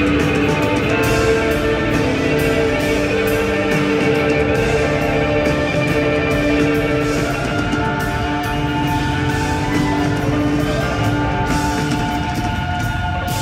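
Live rock band playing an instrumental passage: a Telecaster-style electric guitar plays held lead notes over bass guitar and drums.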